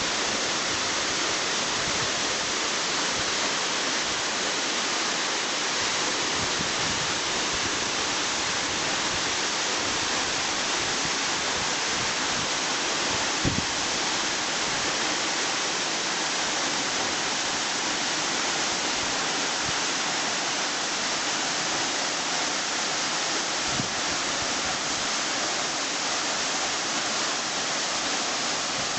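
Takayu Fudo Falls, water falling in a steady, unbroken rush that is mostly high hiss.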